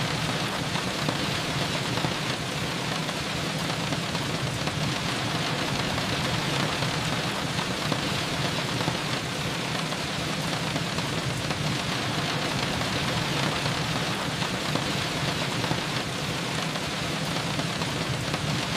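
Steady rain falling, an even hiss of rain with a low rumble beneath it.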